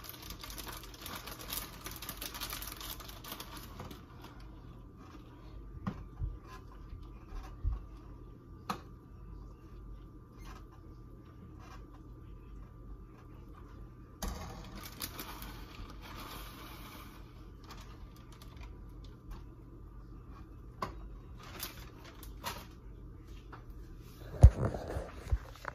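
Kitchen handling noise: a plastic bag of shredded cheese rustling as it is shaken out over a pot, twice in stretches of a few seconds, with scattered clicks and taps in between and a loud knock near the end. A faint steady hum runs underneath.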